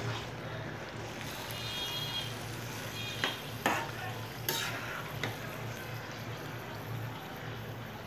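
Marinated chicken frying in oil in a pan, with a steady soft sizzle, as a spatula stirs it. A few sharp scrapes and taps of the spatula against the pan come around the middle.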